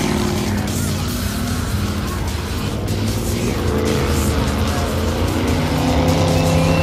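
Monster truck engine running loud, its pitch rising and falling as the driver revs it around the dirt track, with music playing over it.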